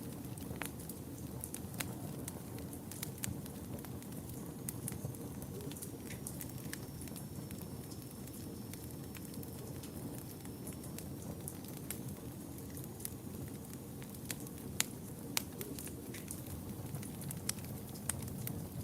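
Wood fire in a fireplace crackling, with irregular sharp pops over a steady low rush of burning. A couple of louder pops come about fifteen seconds in.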